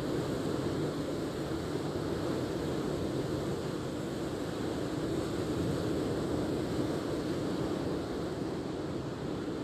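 Steady low rushing noise that does not change for the whole stretch, without speech or music.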